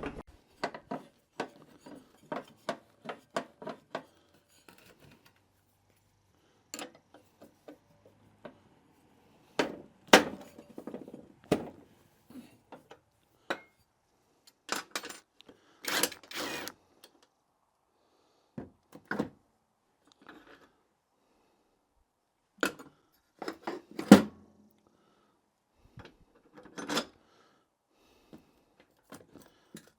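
Tools and parts being handled on a workbench: scattered knocks, taps and clinks. There is a quick run of light taps in the first few seconds and a sharp louder knock about 24 seconds in.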